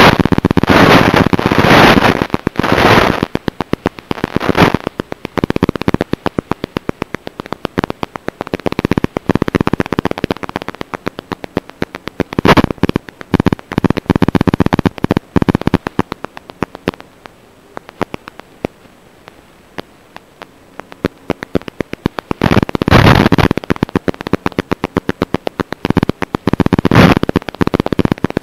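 Crackling static from an analog FPV video receiver's audio: a dense run of rapid clicks that swells into loud hissing bursts in the first few seconds, briefly about twelve seconds in, and again near the end, where the video signal is breaking up.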